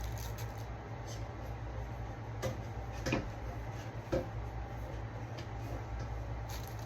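Three light knocks and clicks of dining table parts being handled during assembly, spaced about a second apart around the middle, over a steady low hum.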